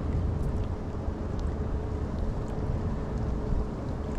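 Steady low rumble of wind buffeting the microphone, with a faint steady hum and a few light ticks.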